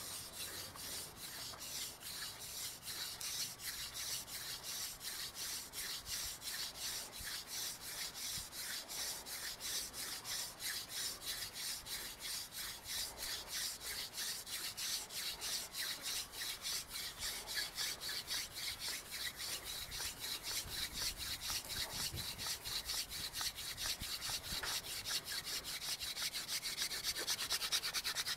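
Hand drill: a wooden spindle spun back and forth between the palms grinds in a fireboard notch, a dry rubbing rasp pulsing about five times a second. It grows louder and stronger toward the end as the pace and pressure build and char dust and smoke form in the notch.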